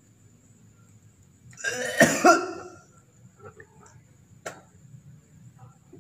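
A person hawking and retching with the mouth open: one harsh throat-clearing cough about two seconds in, then a few faint catches of breath and a sharp click. The gurah herbal treatment is bringing phlegm up from the throat and chest.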